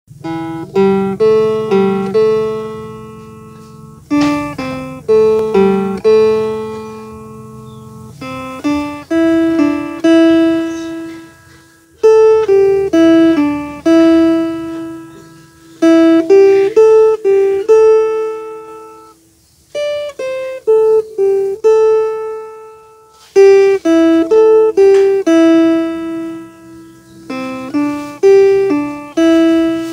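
Homemade wooden box-bodied phin, the Isan fretted lute, played solo: a melody of single plucked notes, some cut short and some left to ring, in phrases broken by brief pauses.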